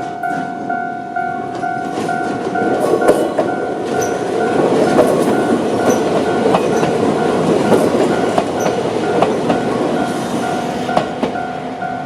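Toyama Chiho Railway 16010-series electric train rumbling over a level crossing, its wheels clicking over rail joints. Through it, the crossing's electronic warning bell keeps ringing a steady two-tone ding, about two and a half strokes a second.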